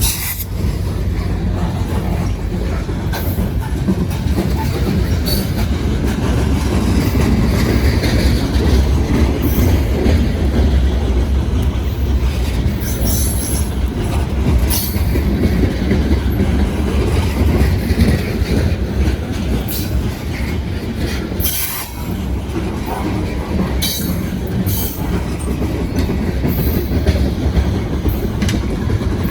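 Loaded rock freight train rolling past: a steady heavy rumble, with wheels clacking over rail joints and a few brief high wheel squeals.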